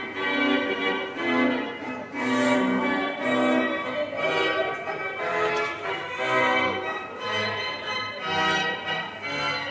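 Bells ringing a steady succession of notes, about two strikes a second, each note ringing on into the next.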